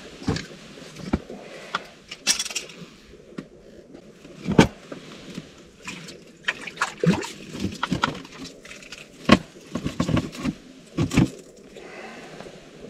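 Irregular clicks, knocks and clatter of small objects being handled, with a few louder knocks about four and a half, nine and a half and eleven seconds in.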